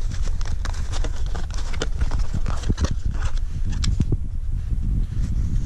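Paper sleeve being slid off a cardboard box by hand: a run of dry scraping, rustling and clicks that thins out after about four seconds, over a steady low rumble.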